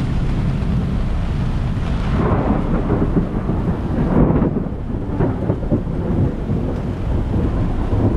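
Squall on a catamaran at anchor: strong wind buffeting the boat and the microphone, with rain, as a continuous rumbling noise. It surges hardest from about two to five seconds in.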